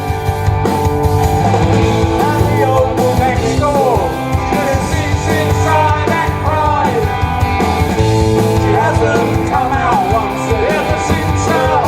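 Punk rock band playing live, with electric guitars, bass and drums in a loud instrumental passage between verse and chorus.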